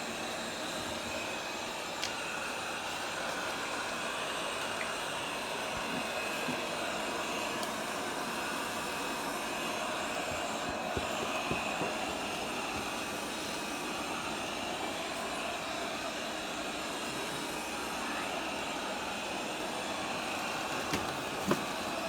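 Bagotte BG800 robot vacuum running: a steady whir from its suction fan and brushes, with a few light clicks near the end.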